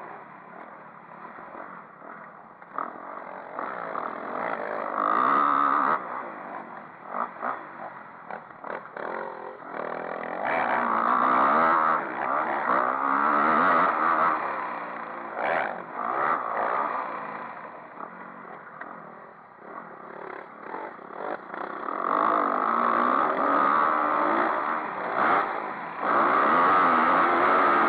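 Motocross bike engine, recorded on board, revving up and easing off in waves as the rider accelerates and backs off, loudest about five seconds in, from ten to fourteen seconds, and again from about twenty-two seconds on. Short knocks and rattles from the bike run through it as it rides over the rough dirt track.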